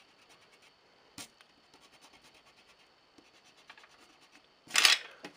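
Eraser rubbing over pencil lines on paper in light, repeated strokes, with a click about a second in and a short, loud rush of noise near the end.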